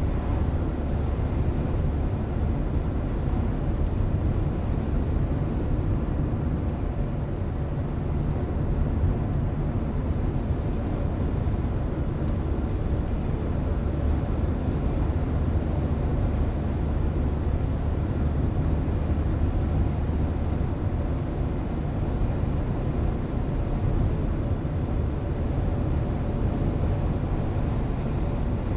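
Steady low road and engine rumble inside a car's cabin while driving at a constant pace.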